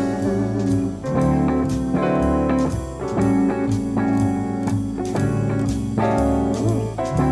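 Instrumental background music in a bluesy, jazzy style, with guitar and drums.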